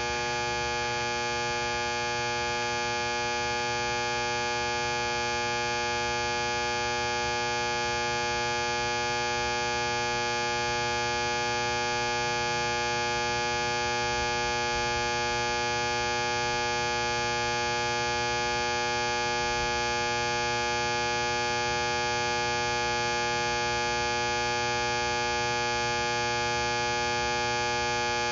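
Electrical box giving off a steady mains hum: an unchanging electric buzz made of many fixed tones.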